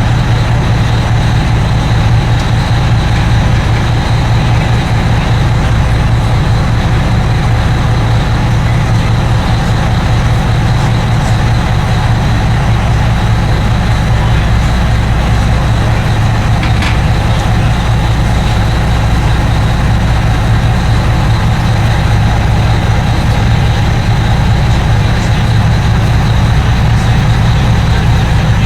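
Party fishing boat's engines running steadily underway: a loud, even drone with a deep hum.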